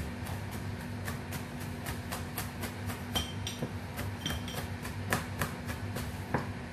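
Kitchen knife mincing garlic on a chopping board: a quick, even run of chopping strokes, about four a second, over a steady low hum.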